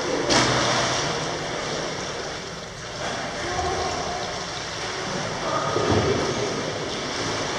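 Indoor swimming pool ambience: a steady wash of water noise, with a sudden louder burst just after the start and another swell about six seconds in.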